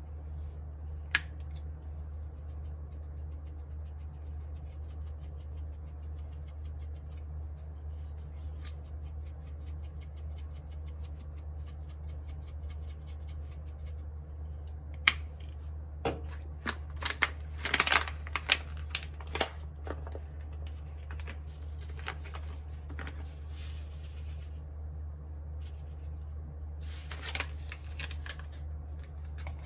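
A steady low hum under scattered clicks and rustles of things being handled, busiest in a flurry about 15 to 20 seconds in.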